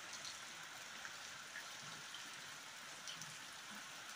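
Heavy rain falling steadily, an even hiss with scattered drops ticking close by.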